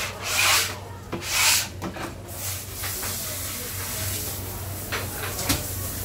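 Hand scraper pushed across a plastic cutting board, two scraping strokes in the first two seconds, then two light knocks about five seconds in over a low steady hum.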